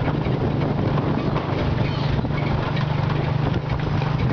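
Engine of a moving vehicle running steadily with a low drone, with rattling and road noise heard from on board.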